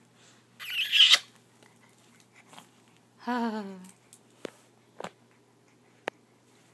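Baby vocalizing: a loud breathy noise about a second in, then a single falling coo a little after three seconds, followed by a few small clicks.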